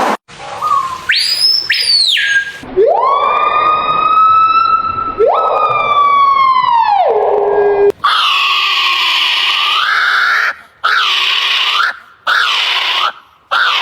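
Bird calls from a compilation of unusual bird sounds, played one after another: first a short sweeping call, then a long siren-like wail that rises, holds and falls, then several shorter calls that dip and rise again.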